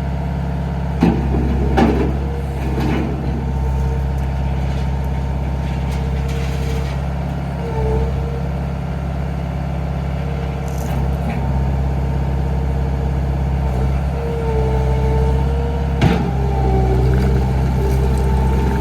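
Bobcat T250 loader's diesel engine running steadily, with a higher whine that shifts slightly in pitch. A few sharp knocks come near the start and again about two-thirds of the way through.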